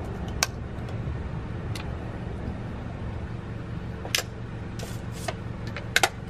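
Aluminium drink cans being shotgunned: a few sharp clicks and snaps from the ring-pull tabs cracking open and the cans being handled, over a steady low hum.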